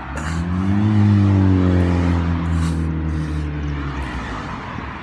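A motor vehicle passing close by. Its engine note rises to its loudest about a second in, then drops in pitch and fades over the next few seconds.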